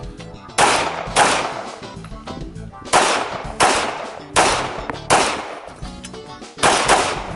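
Semi-automatic pistol fired in four pairs of shots, eight in all, each shot sharp with a short ringing tail. These are double taps on targets, with a pause of a second or more between pairs.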